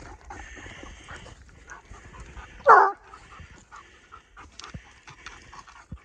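Coonhound treeing at the base of a tree, panting, with one loud bay about halfway through that falls in pitch: the hound's tree bark, marking the tree as holding the quarry.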